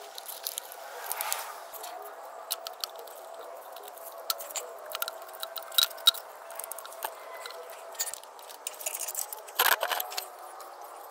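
Scattered light clicks, knocks and rattles of hands working the plastic PCV breather box and its hose loose in a Honda Civic engine bay. A denser cluster of knocks comes about nine to ten seconds in, over a faint steady hum.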